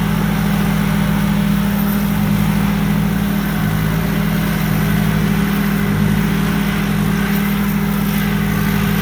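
Thai Seng 'Super Jiw' 165-horsepower combine harvester working in the field, its engine running at a steady, constant drone.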